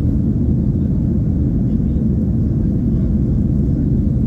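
Steady low cabin noise of a Boeing 737-800 in the climb: its CFM56-7B turbofans and the airflow over the fuselage, heard from a window seat over the wing, with a faint steady hum in it.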